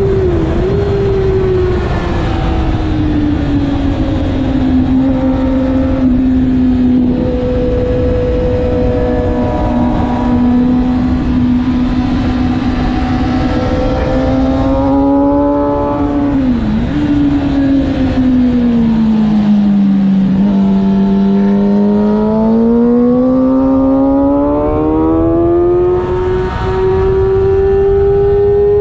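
Sport motorcycle engine running hard on a race track, with wind rushing over the bike-mounted microphone. The engine note falls slowly as the bike slows for a corner, with short dips near the start and about 17 seconds in. It bottoms out about 20 seconds in, then climbs steadily as the bike accelerates out.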